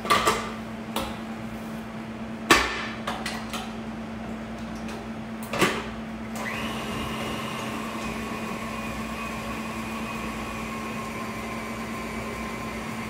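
Metal clanks as the steel bowl and head of a stand mixer are set back in place: three sharp knocks. About six seconds in, the mixer's motor starts and runs steadily with an even whine, its beater working a soft butter paste for tart dough.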